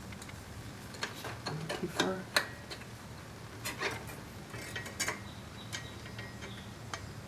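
Irregular small metal clicks and clinks as the rear brake rod and its barrel fitting are worked into place on the brake arm, with a cluster of them in the first couple of seconds and a few more later, over a faint steady low hum.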